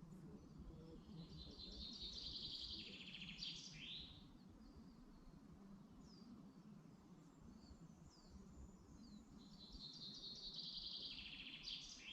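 A songbird sings two phrases about six seconds apart. Each is a fast trill that ends in a quick downward flourish, with fainter short chirps between them over a low, steady background rumble.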